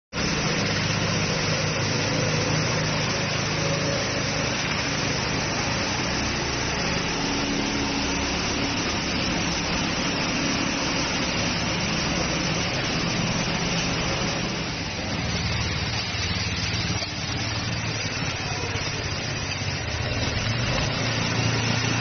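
Small engine of an RC-60T remote-controlled twin-rotor concrete power trowel running at a steady speed as its trowel blades turn over wet concrete.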